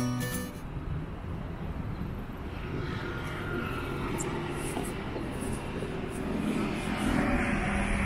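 City street ambience: a steady low rumble and hiss of urban noise that grows a little louder near the end. The last notes of a strummed guitar tune die away at the very start.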